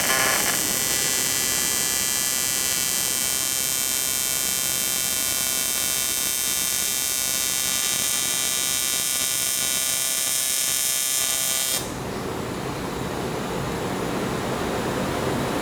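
Electric grinder running steadily at speed with a high whine. It cuts off abruptly about twelve seconds in, leaving a steady hiss.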